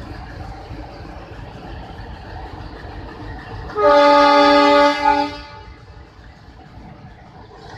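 Diesel locomotive horn: one blast of about a second, then a short second blast, over the locomotive's steady engine rumble. The horn is the loco pilot signalling the guard to move the train.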